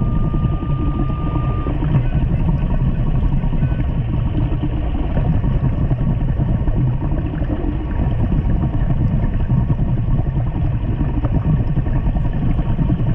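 Steady, muffled underwater rumble of water against the camera housing, heavy in the low end. Over it, a Minelab Equinox metal detector holds a steady target tone for about the first second and a half, with a short higher beep a few seconds in.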